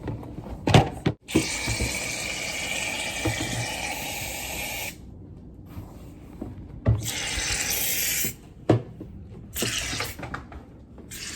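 Water running from a tap in two spells, a steady rush of about four seconds that stops abruptly, then about a second more, with a few knocks in between.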